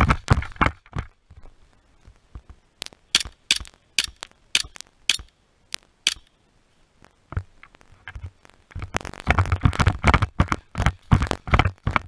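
Footsteps crunching through dry leaf litter, then a pause broken by a string of about eight sharp cracks a few tenths of a second apart. Brisk, louder crunching footsteps start again near the end.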